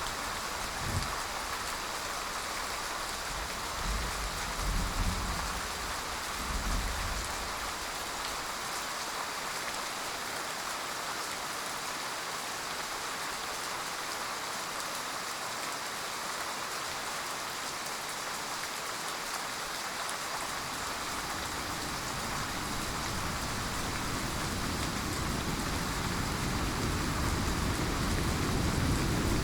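Heavy rain falling steadily. Brief low rumbles of thunder come in the first few seconds, and a low rumble of thunder builds over the last several seconds.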